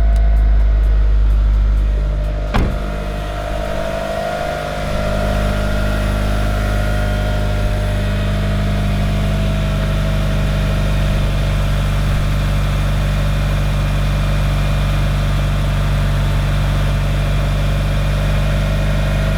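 Mitsubishi Lancer Evolution VIII's turbocharged four-cylinder engine idling steadily, with a single sharp click a few seconds in.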